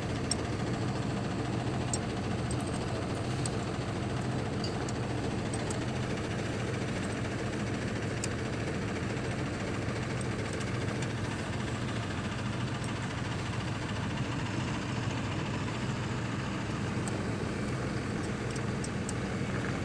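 An engine idling steadily, with a few faint light clicks over it.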